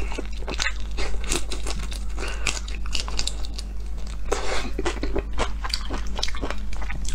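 Close-up biting and chewing of raw prawns: a dense run of crunchy, crackling clicks as the shell and flesh are bitten, over a steady low hum.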